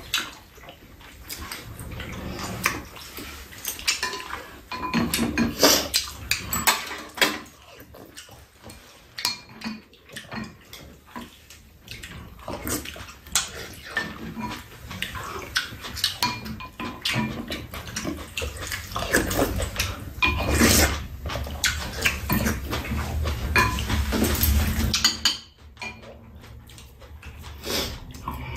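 Eating at a table: metal spoons and chopsticks clinking and scraping against ceramic bowls in scattered clicks, with slurping and chewing of bean sprout and egg soup.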